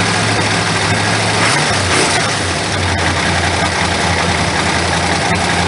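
1969 Plymouth Road Runner's 426 HEMI V8 idling with its solid lifters clattering, along with what is called piston slap. The idle settles slightly lower about one and a half seconds in.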